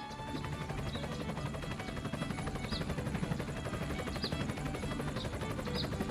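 A small motor running with a fast, even pulsing rattle. It starts abruptly at the beginning.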